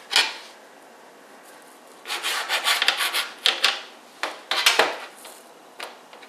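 A long kitchen knife sawing back and forth through a log of rolled croissant dough on a metal baking sheet: a run of rasping strokes from about two seconds in, after a short knock near the start.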